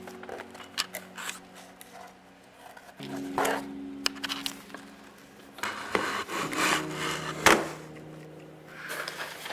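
Cardboard shipping box being handled and opened: flaps rubbing and scraping, with scattered clicks and a sharp knock about seven and a half seconds in. Soft background music with sustained chords plays underneath.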